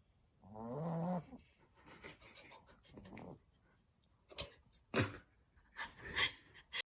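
Cockapoo puppy snoring in its sleep: one drawn-out, pitched snore rising in pitch about half a second in, then quieter breathy sounds and several sharp clicks in the last few seconds.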